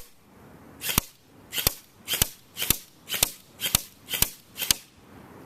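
JG M4 RIS commando electric airsoft rifle firing single shots, about nine sharp cracks at roughly two a second, each with a brief gearbox whir just before it.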